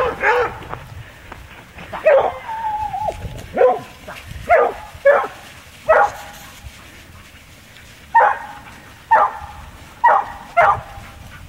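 Penn-Marydel foxhounds giving tongue: about ten separate short yelping bays, one of them a longer, wavering howl about two seconds in, with a lull of a couple of seconds in the middle.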